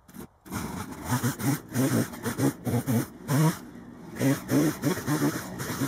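Chainsaw engine running in short, choppy bursts with abrupt breaks between them, starting about half a second in.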